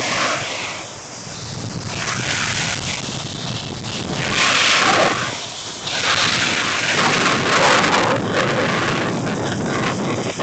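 Wind rushing over the microphone and a snowboard hissing and scraping over snow during a run, swelling and fading in waves. It is loudest about four seconds in and again from about six to eight seconds.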